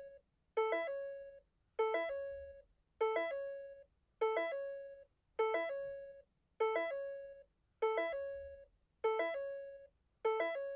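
Countdown timer's end alarm: a bell-like chime struck over and over, about once every 1.2 seconds, each strike ringing briefly and dying away, signalling that time is up.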